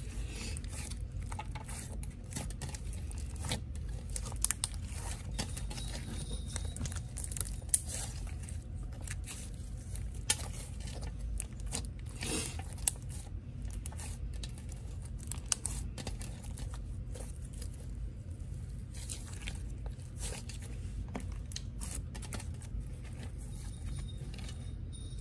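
Kawaii Slime Company Mango Strawberry Sunrise slime, a slime with small beads mixed in, being stretched, folded and squished by hand, making lots of small pops and clicks at irregular intervals, a few sharper than the rest.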